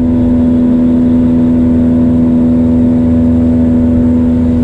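Boat motor running loudly at a steady speed. It gives a constant hum with a stack of overtones that comes in suddenly just before and holds without change.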